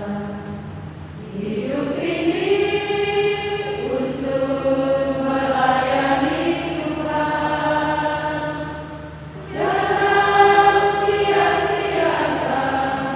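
A group of nuns singing a hymn together in long, held phrases. They pause for breath about a second in and again near the end.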